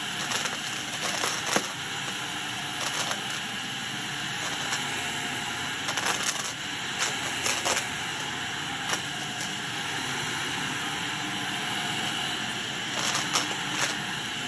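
Shark Navigator upright vacuum running on carpet, a steady motor and airflow hiss. Sharp clicks and crunches cut through it, some in quick clusters, as grit and debris are sucked up and rattle through the nozzle and hose.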